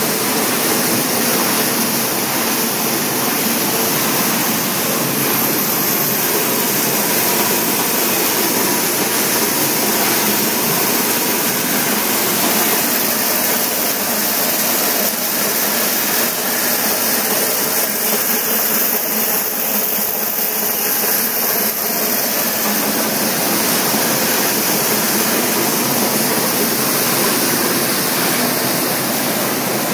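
PLGR-150 plastic granulator line running: a loud, steady mechanical rush with no clear rhythm or separate knocks.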